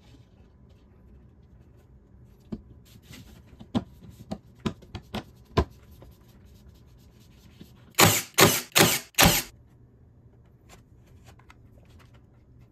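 Drawer assembly: a run of sharp wooden taps and clicks as the plywood bottom panel is seated in the dovetailed drawer box. Then four loud rasping squeezes about half a second apart, the loudest sound here, from a trigger bar clamp being ratcheted tight.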